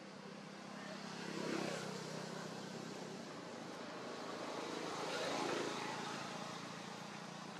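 Motor vehicles passing at a distance, twice: each one swells up and fades away over a couple of seconds, the first about a second and a half in and the second about five seconds in, over a steady low hum.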